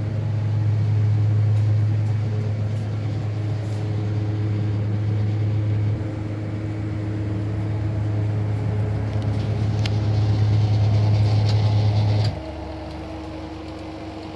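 An engine running steadily with a low hum. The hum drops away about twelve seconds in, leaving a quieter, higher hum.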